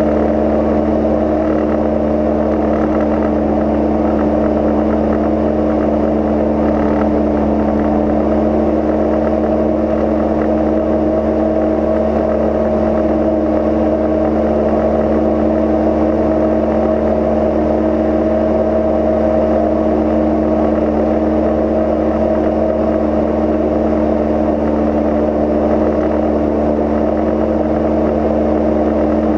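Steady in-flight drone of a Cozy Mk IV's pusher engine and propeller at cruise, with constant airflow noise.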